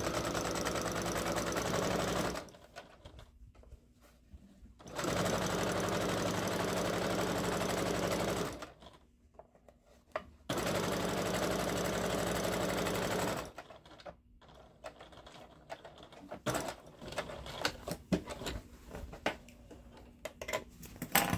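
Domestic electric sewing machine stitching a straight seam in three steady runs of a few seconds each, with short stops between. In the last several seconds it is stopped, and there are only scattered small clicks and rustles of the fabric being handled.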